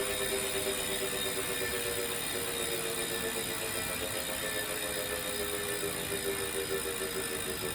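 Wahoo Kickr Core direct-drive bike trainer running: a steady whir with a grinding noise, its humming tones drifting slightly in pitch as the speed varies.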